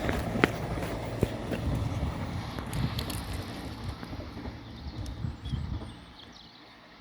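Diesel passenger train passing and moving away: its rumble and rail noise fade steadily until it is almost gone, with a few sharp clicks in the first three seconds.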